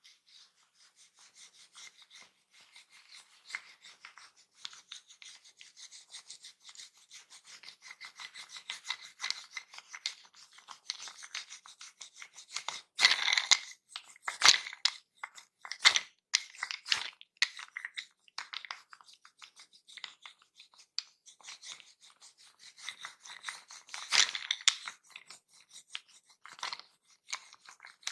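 Massage strokes on hair and skin, close-miked: a dense run of soft scratchy rubbing, with a few louder strokes about halfway through and again near the end.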